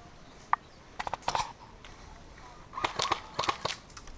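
Airsoft guns firing in sharp pops: a single shot, a quick string of shots about a second in, and another string about three seconds in.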